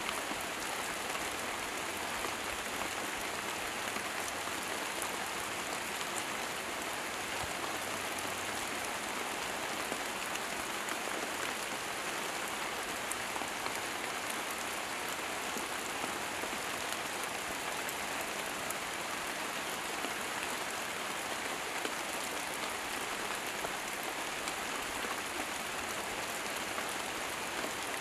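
Steady rain falling on leafy foliage: a continuous, even patter with occasional single drops standing out.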